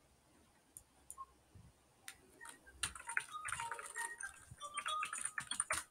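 Faint clicking of computer keyboard keys as a word is typed: a few scattered clicks at first, coming more often after about two seconds, with a faint pitched background sound in the second half.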